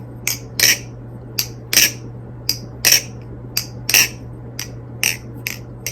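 Sharp metal clicks in quick pairs, about once a second, from the 6061 aluminium handles of an NRB Vortex balisong knocking against the blade's tang and pins as it is worked open and shut by hand.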